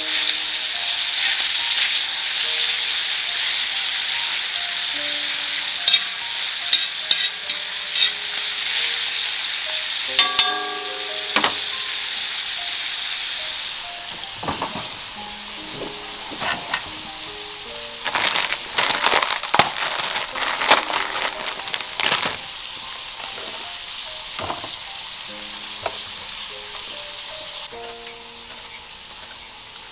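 Pieces of meat sizzling loudly on a cast-iron pot-lid griddle while being stirred with chopsticks, with little clicks as they are turned. The sizzle cuts off about halfway, and a run of quick knocks follows. Faint piano music plays underneath.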